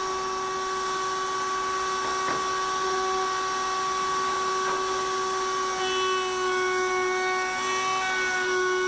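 Table-mounted router running at a steady high whine while the edge of a hardwood cutting board is fed past the bit.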